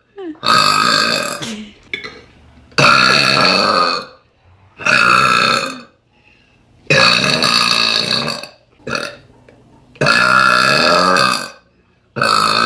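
A woman burping loudly over and over, about six long, drawn-out belches of roughly a second each with short pauses between and one brief one in the middle, brought up by drinking Coca-Cola.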